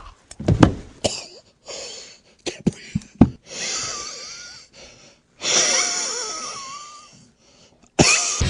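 A few sharp thumps, then a person's strained, wheezing gasps in two long drawn-out breaths with a wavering pitch.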